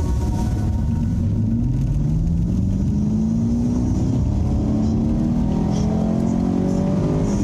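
Gen6 Camaro SS's 6.2-litre V8 accelerating hard through the gears, heard inside the cabin: engine pitch climbs, drops at an upshift about three seconds in, climbs again and drops at another upshift near the end.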